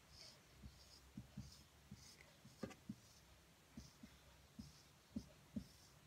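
Faint strokes of a marker pen on a whiteboard: short scratchy swipes, with soft knocks of the pen against the board in between.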